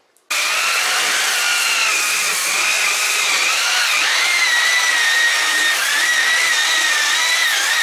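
Harbor Freight 7-inch rotary (non-orbital) sander running with an 80-grit pad against drywall. It starts abruptly just after the beginning, then gives a steady motor whine that wavers slightly in pitch over a rasping hiss.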